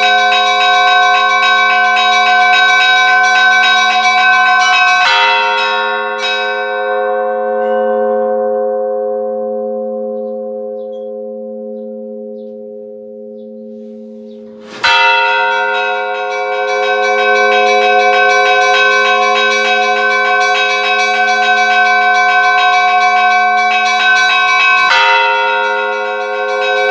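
Church bells ringing in a rapid, continuous peal. About five seconds in the striking stops and the bells ring on, the higher tones dying away first and the whole fading over about ten seconds. Halfway through, the peal starts again abruptly.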